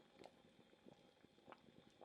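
Faint bubbling of a pot of sweet soup simmering: small bubbles pop at irregular moments.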